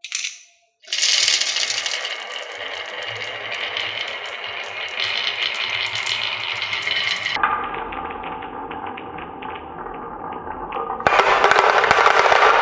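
Marbles rolling and clattering down a HABA marble run, a dense steady rattle of many small clicks. It changes sharply twice, about seven seconds in and again near eleven seconds, and is louder after the second change.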